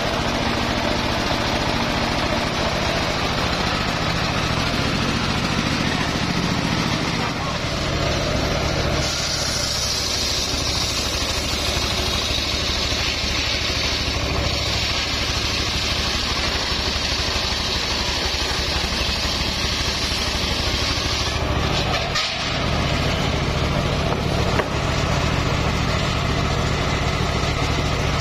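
Homemade engine-driven circular saw running steadily. From about nine seconds in to about twenty-one seconds its blade is ripping lengthwise through a log, adding a high cutting whine over the engine. After a brief dip the saw runs on.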